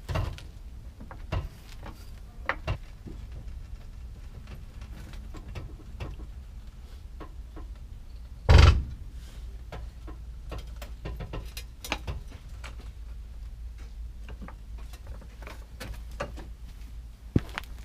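Car jack and jack stand being worked under a car: scattered metallic clicks and knocks over a low steady hum, with one heavy thump about eight and a half seconds in.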